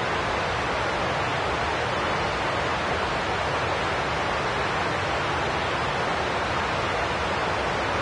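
Steady, loud hiss of radio static from a weather radio receiver tuned to 162.550 MHz, with only noise coming through because the station is off the air.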